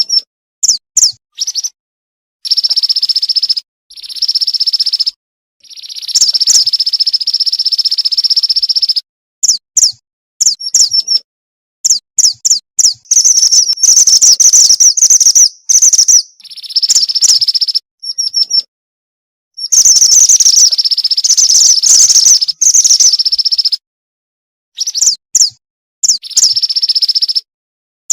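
Female mantenan bird calls used as a lure to attract males: high, buzzy trills of one to three seconds alternating with quick runs of short chirps. Gaps of dead silence fall between the bursts.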